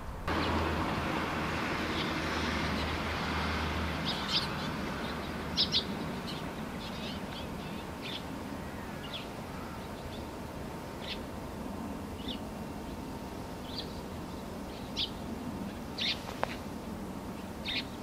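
Small songbirds giving short, high chirps, scattered one or two at a time about once a second, over a steady outdoor hiss. A low hum runs under the first few seconds.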